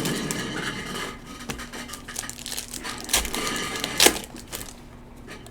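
Trading-card packs and cards being handled: scattered sharp clicks and taps over faint crinkling, with the loudest click about four seconds in.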